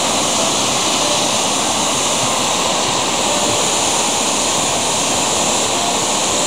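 Water pouring over a low river weir, a steady, unbroken rush.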